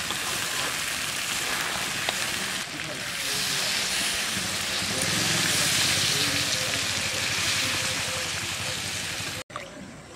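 Water poured into a hot pan of fried duck meat and spice paste, splashing and hissing as it hits the oil; the pouring grows louder about three seconds in and cuts off suddenly near the end.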